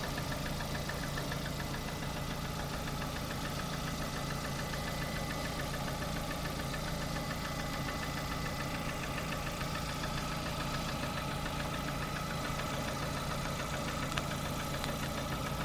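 Lada Kalina's 1.4-litre 16-valve four-cylinder engine idling steadily with a fast, even ticking knock running through it: an unexplained knock the owner is trying to trace. A single slightly louder click comes near the end.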